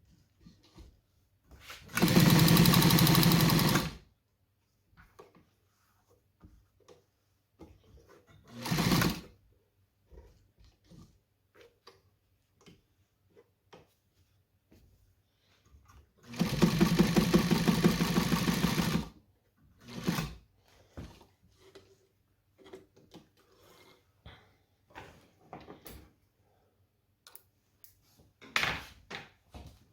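New Home Paragon class 15 straight-stitch sewing machine stitching at speed in two runs of about two seconds each, with a few shorter bursts between and light clicks of handling in the pauses.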